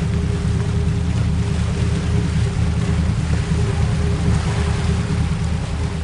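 Boat engine running steadily, a low drone with a steady hum above it and some wash of water and wind.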